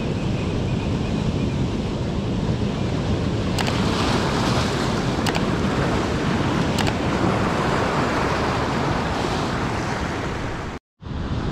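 Ocean surf washing on a beach, with wind rumbling on the microphone. The wash swells about three and a half seconds in, three faint clicks come a second or so apart, and the sound cuts out for a moment near the end.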